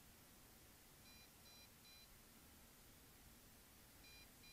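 Faint triple beeps from the MJX Bugs 5W radio transmitter's low-battery alarm: a group of three short high beeps about a second in and another near the end, the warning that the drone's flight battery is running low.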